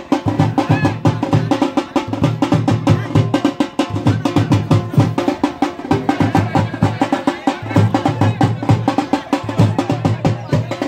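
Fast, continuous drumming: rapid stick strokes in a repeating rolling rhythm.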